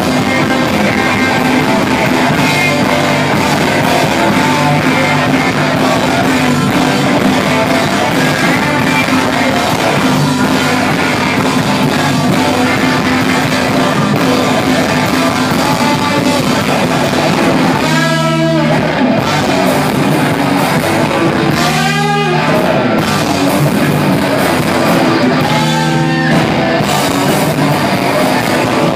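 Live rock band playing loud, with electric guitars and a drum kit. In the last third the band drops out in brief stops about every four seconds.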